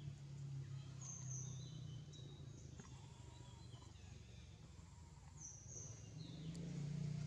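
Faint outdoor ambience: a steady low hum with a few short, high chirps, some falling in pitch, at about a second in, around two seconds and again near the end.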